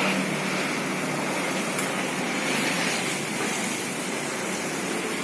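Steady rushing air noise of an electric desk fan blowing across a charcoal grill to fan the coals.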